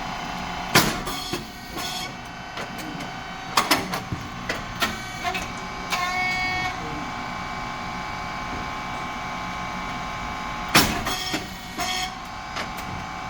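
SYP9002 rice cake popping machine running steadily with a continuous motor and hydraulic hum. A sharp bang comes about a second in and another about ten seconds later, one per production cycle, as the heated moulds open and the rice cakes pop. Smaller clicks and knocks of the moulds and plate come in between, with a short tone near the middle.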